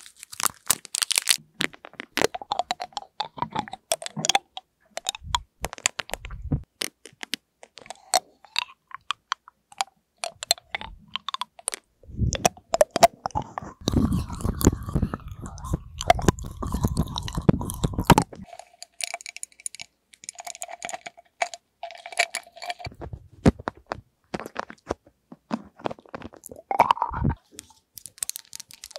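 Round hard candy handled in its wrapper, then rolled around inside the mouth right at the microphone, with many sharp clicks and clacks as it knocks against the teeth.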